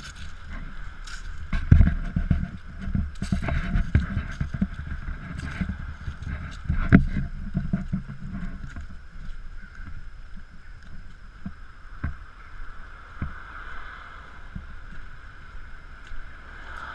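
Muffled rumbling and knocking of a body-worn action camera jostled as its wearer walks, with hard thumps about two and seven seconds in; it settles down in the second half.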